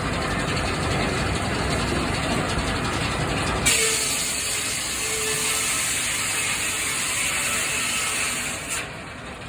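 Old sawmill running: steady mechanical clatter of the carriage and drive, then about four seconds in a loud high hiss as the saw starts cutting through the log, lasting about five seconds before it drops away near the end.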